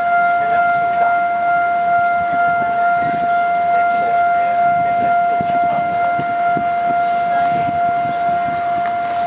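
Railway level-crossing warning alarm sounding a continuous, steady high tone, the signal that a train is about to pass and the barriers are down.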